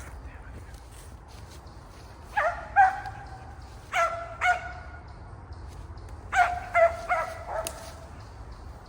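Dog barking: about eight short barks in three groups, two, then two, then four, each dropping slightly in pitch.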